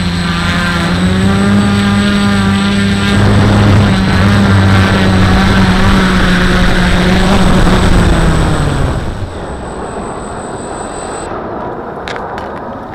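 Quadcopter's electric motors and propellers whirring right beside the onboard camera, with the drone down at ground level. The pitch drops and the motors spin down and stop about nine seconds in. After that, a thin high whine carries on until about eleven seconds in over a steady hiss, with a couple of clicks near the end.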